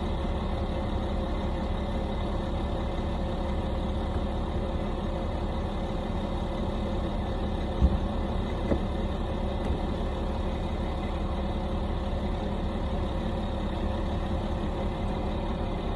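A steady mechanical drone with a few faint steady tones running through it, and a single short knock about eight seconds in.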